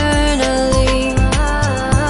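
Background music: a pop song with a steady beat under a melodic line.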